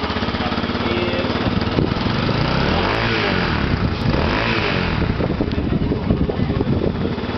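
Honda NX 400 Falcon's single-cylinder four-stroke engine running through a Roncar Coyote 2Way aftermarket exhaust, idling unevenly and blipped up twice around the middle.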